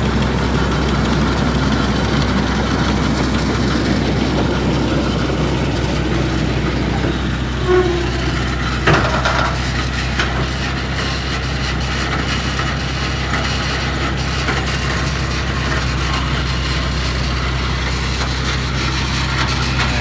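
Massey Ferguson tractor's engine and a John Deere 330 round baler running steadily, with a brief squeak and a single sharp clunk about nine seconds in as the baler's tailgate opens and ejects a round bale of hay.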